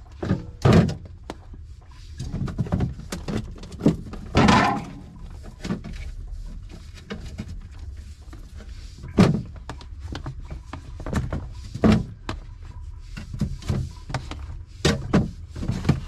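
Irregular plastic knocks and thunks as tomatoes are set into a refrigerator's crisper drawer and items inside the open fridge are handled, with a few louder thuds at intervals.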